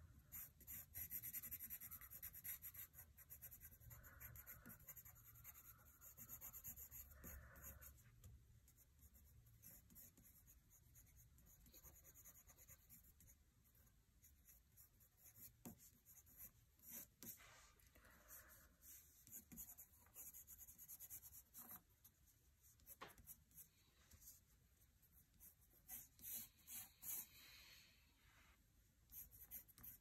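Faint scratching of a pencil drawing across paper, in irregular short strokes with brief pauses between them.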